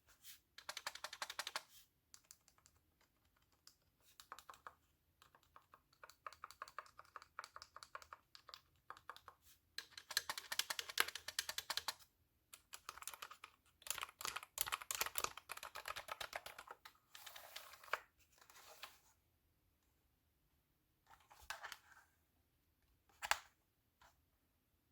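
Rapid clicking of keys being typed on a novelty cat-themed keyboard, coming in runs of one to two seconds with short pauses between, and a single sharp click near the end.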